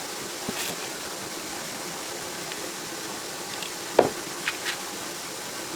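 Steady hiss of background noise, with a single sharp knock about four seconds in and two lighter clicks just after it, from tractor parts and tools being handled.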